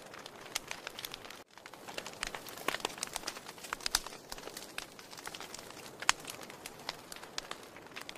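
Wood fire burning in a fireplace, crackling with many irregular sharp pops over a soft hiss. The sound cuts out for a moment about a second and a half in.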